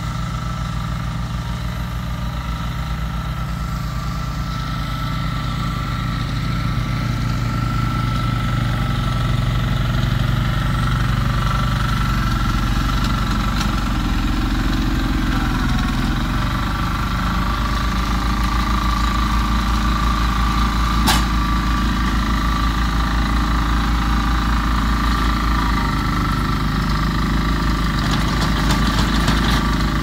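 Diesel engines of a Yanmar mini excavator and a Yanmar tracked mini dumper running steadily at work, with one sharp knock about two-thirds of the way through.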